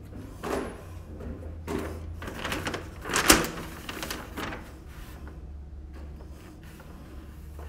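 Handling noise: a string of knocks and rustles, the loudest about three seconds in, over a steady low hum.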